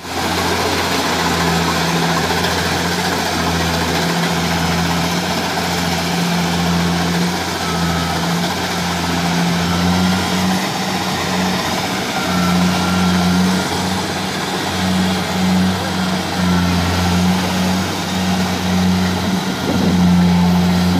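Kubota crawler combine harvester's diesel engine running steadily under load as the machine crawls through deep paddy mud. Its pitch steps slightly up and down every few seconds.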